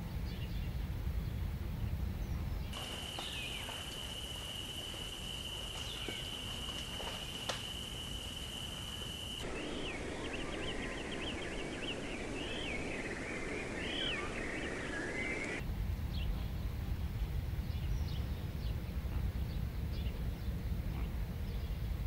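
Outdoor nature ambience that changes abruptly in sections. It starts as a low rumbling noise. A steady high-pitched tone then runs for several seconds under scattered chirps. Next come about six seconds of many birds chirping together, and then the low rumble returns with faint calls.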